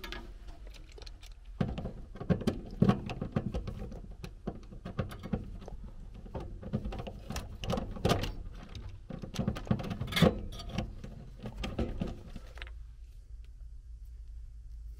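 Screwdriver turned by hand, mounting a furnace hot surface ignitor: irregular metal clicking, scraping and knocking, stopping about thirteen seconds in.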